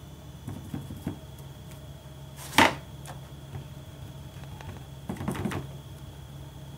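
Sponge dauber dabbing white craft ink onto cardstock through a plastic circle template: a few soft taps, one louder knock about two and a half seconds in, and a short cluster of dabs near the end.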